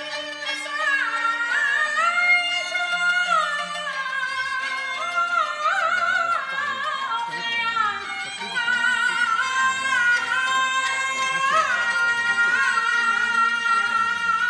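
Beijing opera music: a high melody with a wide vibrato, moving in steps, then settling into one long held note near the end.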